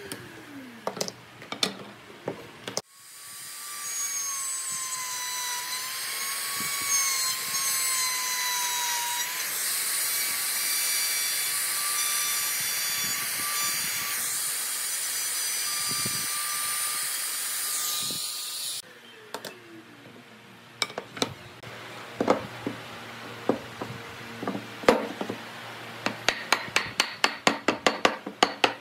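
Compact trim router running steadily as it cuts wood, with a high whine and a slightly wavering tone; it starts about three seconds in and stops abruptly around two-thirds of the way through. After it come sharp wooden knocks that speed up to about four a second near the end, from the parts being tapped with a wooden stick.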